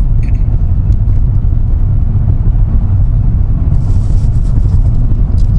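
Road noise inside a moving car's cabin: a steady low rumble of tyres and engine, with a brief hiss about four seconds in.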